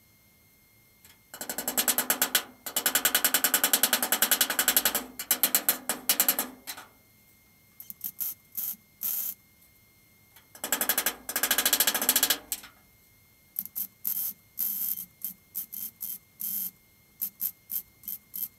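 MIG welder arc crackling as spot welds are laid on the steel inner wing repair panel of a classic Mini. There are three longer welds of one to four seconds in the first half, then a string of short, sharp bursts, one tack or spot after another.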